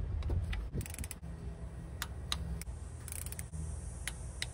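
Ratchet wrench clicking in short, irregular runs as bolts are tightened down, over a low steady hum.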